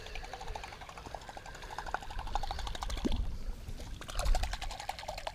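Baitcasting reel cranked in a steady retrieve, its handle and gears clicking about six times a second. The clicking breaks briefly about three seconds in, then comes faster, with a heavier handling bump about four seconds in.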